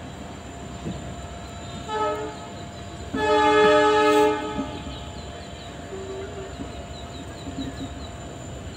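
Locomotive horn of an Indian passenger train heard from on board: a short toot about two seconds in, then a louder blast lasting just over a second, over the steady running noise of the moving coach.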